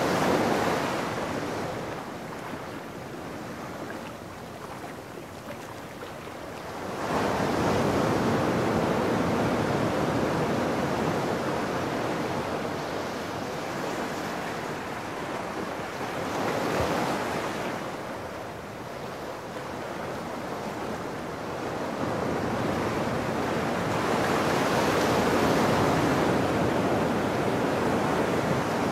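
Ocean surf breaking and washing up over sand and rocks, swelling and ebbing as the waves come in, with a sudden loud surge about seven seconds in and a long loud wash near the end.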